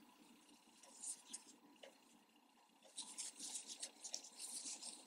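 Near silence, with the faint scratching and rustling of a metal crochet hook pulling yarn through stitches, mostly in the second half.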